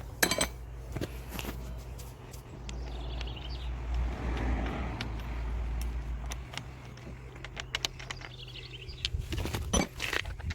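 Metal clicks and knocks of a spanner working a car's rear wheel bolts loose. A vehicle passes by about midway, swelling and then fading.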